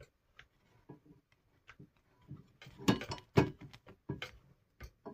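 Light taps and scrapes of a flat metal spatula against an iron tawa as a roti is pressed and turned over a gas flame. There is a louder cluster of clatter about three seconds in.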